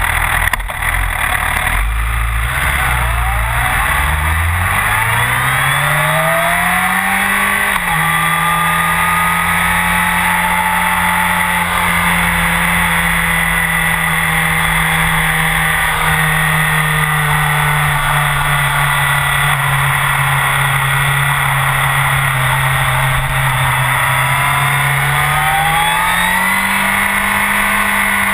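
Honda CBR1000RR inline-four with a full Akrapovic exhaust under hard acceleration on track: the revs climb for several seconds, drop sharply at an upshift about eight seconds in, then hold nearly steady for a long stretch before rising again near the end. Wind rushes over the bike the whole time.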